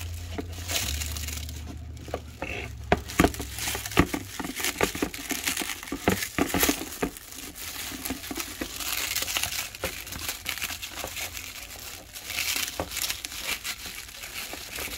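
Clear plastic packaging wrap crinkling and crackling as it is pulled and bunched off a new RC truck by hand, with a few sharper pops about three to four seconds in.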